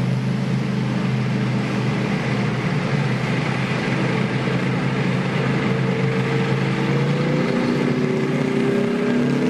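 Type 90 main battle tanks driving past, their ten-cylinder two-stroke diesel engines running with a steady low drone. From about six seconds in, a higher engine note climbs slowly in pitch as one tank revs.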